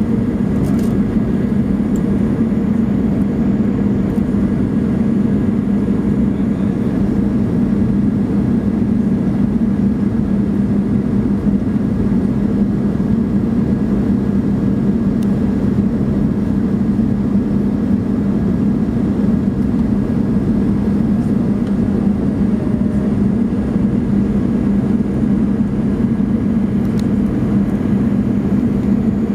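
Steady cabin noise of an Airbus A320 in flight, heard inside the cabin by the wing: a constant engine drone with airflow rush, unchanging throughout.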